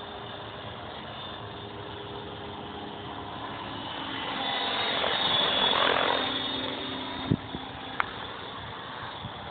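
Electric Align T-Rex 550 radio-controlled helicopter flying, a steady rotor and motor whine that swells louder about halfway through and then eases off. Two sharp clicks come near the end.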